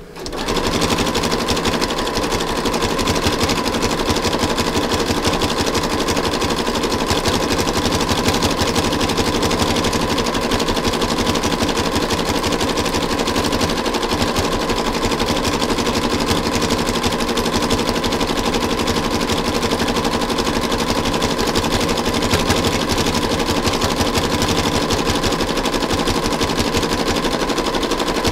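Electric sewing machine running fast and steadily, its needle stitching through coiled fabric-covered rope. A rapid, even chatter with a steady motor hum.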